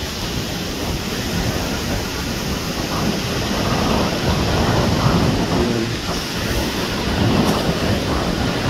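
Wind buffeting the microphone in a steady low rumble, over the rush of sea waves washing onto the shore.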